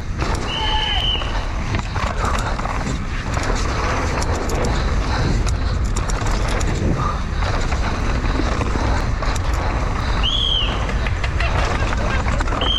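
Downhill mountain bike rolling fast over a dirt trail: steady tyre and wind rush with frequent small clicks and rattles from the bike. Two brief high-pitched squeals cut through, one near the start and one about ten seconds in.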